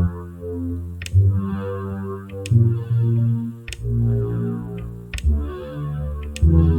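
Sci-fi synthesizer patch from Rast Sound's Sounds of Mars library, played one note at a time. A deep held tone with a shimmering upper layer changes pitch about every second or so, and each new note starts with a sharp click.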